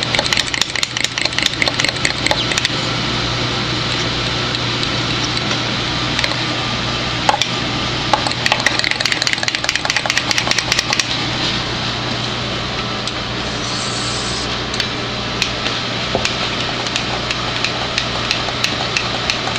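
Metal spoon stirring a thick wine-and-flour paste in a glass mug, clicking rapidly against the glass in two busy spells, the first right at the start and the second about eight seconds in, then more sparsely. A steady low hum runs underneath.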